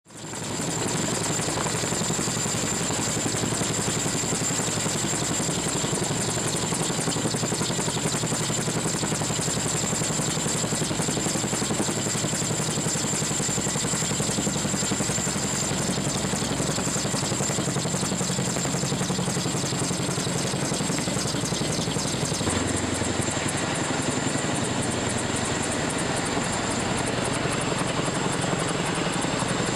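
Boeing CH-47 Chinook tandem-rotor helicopter hovering nearby: a steady, fast rotor chop with a high whine over it, fading in at the start.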